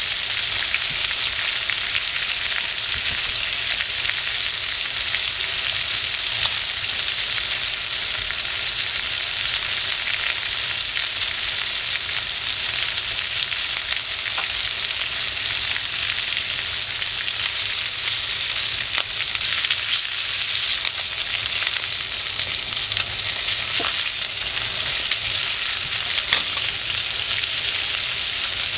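Chicken pieces frying in oil in a cast-iron skillet: a steady sizzling hiss with a few small pops.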